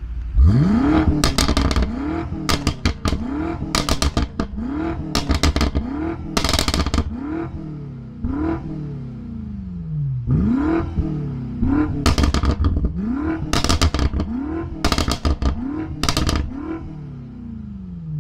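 A stationary car's twin-turbo V8 being blipped again and again in sport mode: about fifteen quick revs, each rising sharply and falling away, with sharp exhaust pops and crackles on every lift-off and a short pause about halfway through.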